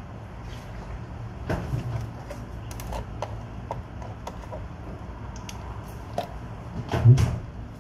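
Small clicks and knocks of a cardboard milk carton being handled and its plastic screw cap twisted open, over a low steady hum, with one louder dull thump about seven seconds in.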